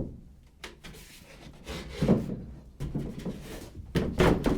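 Wooden panel being set into place on top of another: a sharp knock at the start, then wood bumping and scraping around two seconds in and again, louder, about four seconds in.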